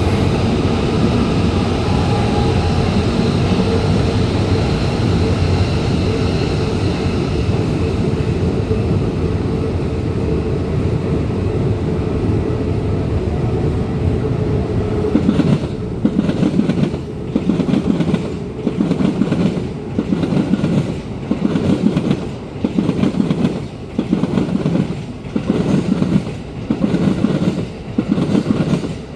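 Keikyu Line electric commuter trains passing close by. First comes a steady running rumble, then from about halfway a regular clack and rumble about every 1.3 s as car after car rolls over the rail joints.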